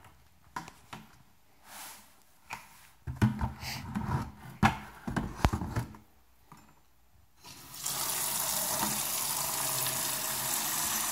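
A few knocks and clattering, then a kitchen faucet starts about two-thirds of the way in and runs steadily into a plastic pail filling with water.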